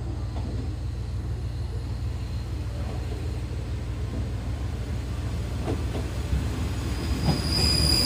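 KiRo 47 diesel railcar approaching along the track: a steady low diesel rumble that grows louder as it nears. A high-pitched squeal from the train sets in near the end.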